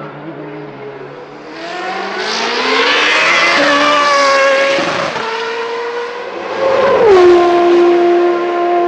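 Formula race car engine accelerating hard out of a corner, its pitch rising, with a gear change about five seconds in. Near seven seconds the car passes close at its loudest and the pitch drops sharply, then holds steady.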